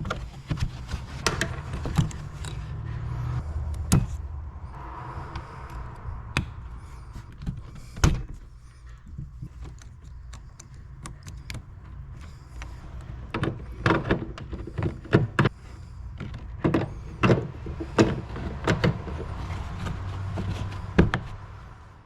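Scattered sharp clicks and knocks of plastic parts being handled as bulb sockets are twisted out of and back into a car's tail-light housing, over a steady low hum.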